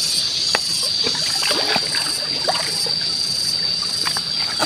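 A steady high-pitched insect drone, with scattered light splashes and small clicks as hands work in shallow muddy water and handle freshwater snails and mussels.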